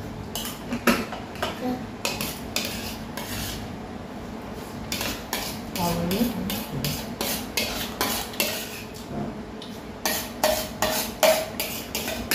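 Spoons and chopsticks clinking and scraping against ceramic plates and bowls as people eat, a run of short clicks that comes thickest about halfway and again near the end.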